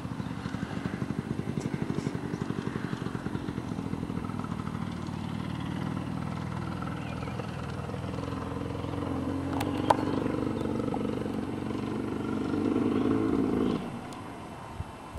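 An engine running with an even low pulsing. It grows a little louder and higher about twelve seconds in, then cuts off abruptly. A single sharp click about ten seconds in.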